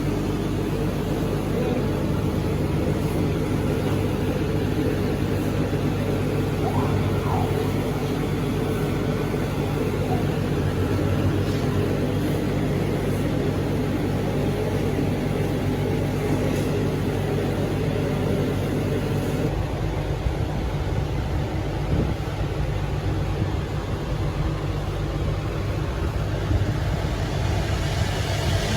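CNC cutting machine running with a steady low hum; its tone changes about twenty seconds in.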